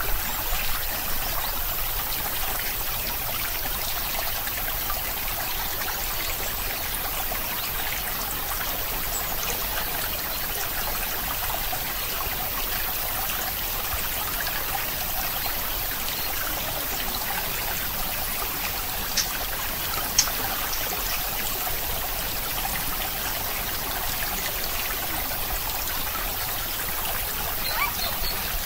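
A steady, even hiss like running or trickling water, with two faint clicks about two-thirds of the way through.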